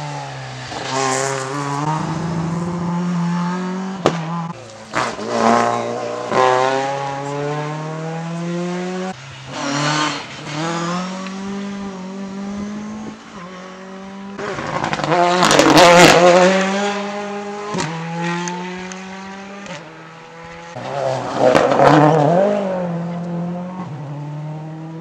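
Rally car engine revving hard, its pitch climbing and then dropping several times as it goes through the gears. It is loudest about two-thirds of the way through.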